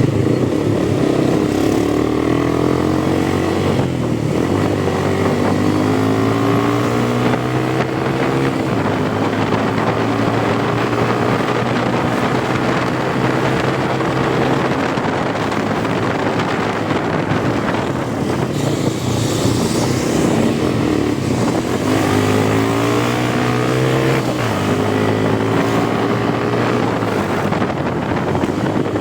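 Motorcycle engine pulling through the gears on the move, its pitch climbing in several runs and dropping back at each shift, over a steady low engine drone.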